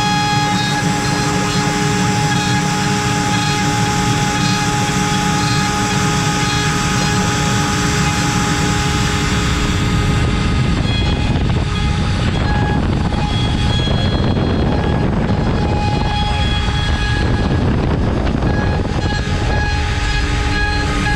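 CNC router spindle at 24,000 rpm driving an 8 mm cutter through wood, a steady high whine over a rough cutting noise. About halfway through, the hiss gets duller and the whine fades in and out as the cutter's load changes along the toolpath.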